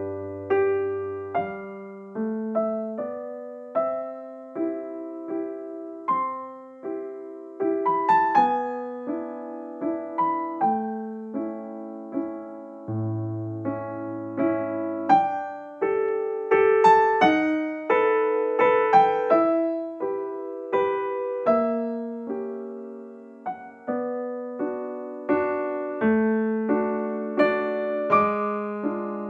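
Background music: a slow solo piano piece, chords and single notes struck and left to fade, with an occasional low bass note.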